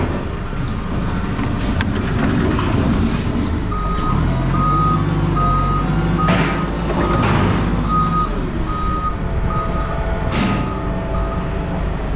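A vehicle's reversing alarm beeping steadily, a little more than one beep a second on a single tone, over the low rumble of its engine running, with a few short hisses in between.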